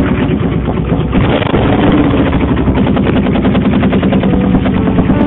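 Suzuki VZ800 Marauder's V-twin engine running steadily, a loud rapid even pulsing heard close to the bike.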